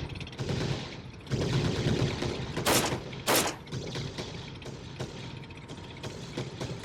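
Movie battle sound effects: rapid gunfire crackling over a low rumble, with two loud bangs about half a second apart a little under three seconds in.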